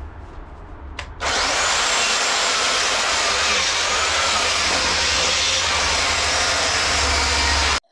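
Stihl MSE 250 C electric chainsaw starting about a second in and cutting into an upright western red cedar log: a steady motor whine under the rasp of the chain through the wood. It cuts off suddenly near the end.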